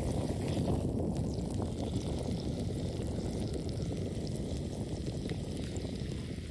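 Wind buffeting the microphone, a fluttering low rumble, over faint crackling from a steak searing on a small griddle.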